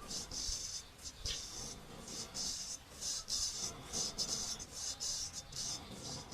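Traditional straight razor scraping over hair and stubble in short, quick strokes, about two strokes a second.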